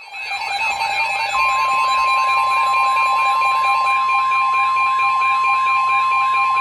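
NOAA Weather Radio alert: a warbling electronic alarm cycling about three times a second, joined about a second in by the steady 1050 Hz warning alarm tone that announces a warning broadcast.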